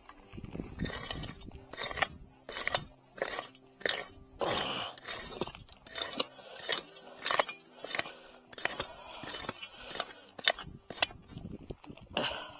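A prospecting pick striking stony ground, about one or two sharp strikes a second, with gravel clinking and scraping in between.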